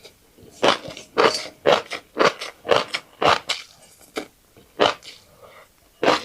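Close-miked chewing of a fish roe and rice bowl: short wet, crunchy chews at about two a second, with a brief lull near the end.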